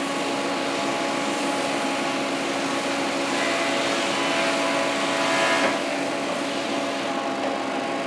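Long-bed stroke sander running with a steady hum while its belt sands a board under the hand-pressed pad. A brighter scratchy sanding noise swells from about three seconds in and drops back near six seconds.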